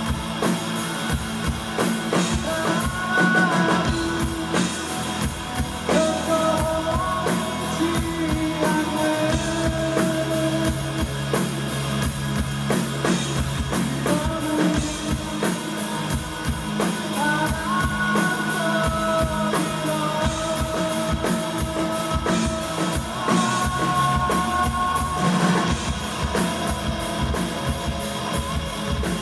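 Rock band playing live: a drum kit beating steadily under electric guitar, with held, sliding sung or lead notes over the top.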